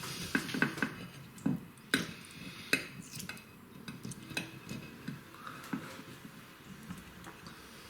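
Metal tandoor skewers clinking and knocking against a bowl as chicken wings are pushed onto them. There are several sharp clinks in the first three seconds, then only a few faint ticks.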